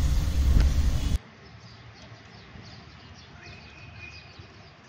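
A loud rumbling noise cuts off abruptly about a second in. After it, birds chirp faintly in the background with many short chirps.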